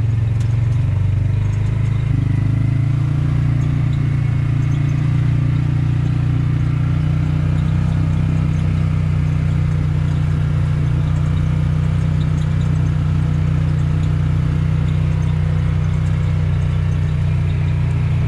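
Side-by-side utility vehicle's engine droning steadily as it drives along a dirt track, heard from inside the open cab; the engine note rises a little about two seconds in.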